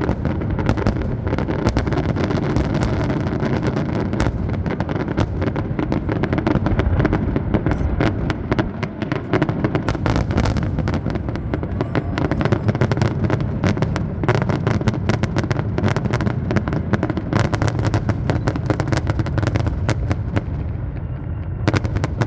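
Fireworks display in a dense, continuous barrage: rapid bangs and crackles over a deep rumble of booms.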